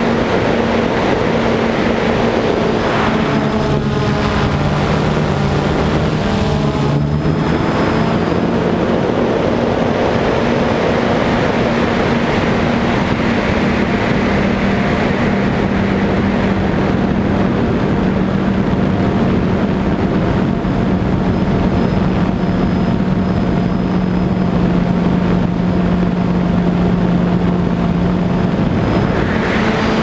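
A drone's motors and propellers buzzing steadily in flight. About three seconds in, the hum drops in pitch for several seconds, then steadies a little higher, and it rises again near the end.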